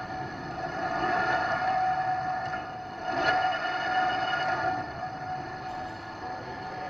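Metal lathe running with a steady gear whine, the four-jaw chuck spinning, then slowing to a stop about five seconds in.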